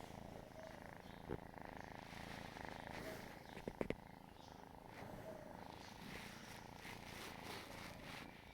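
Kitten purring close to the microphone, a steady motor-like rumble, with a few faint clicks about a second in and again around four seconds in.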